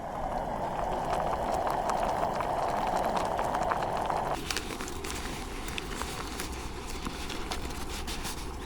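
Wood fire crackling with scattered small pops, under a steady rushing hiss that stops abruptly about four seconds in.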